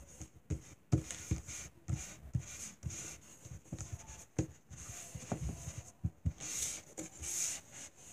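Hands patting, pressing and rubbing kinetic sand into a ball: a string of irregular soft thumps with scratchy rustling in between.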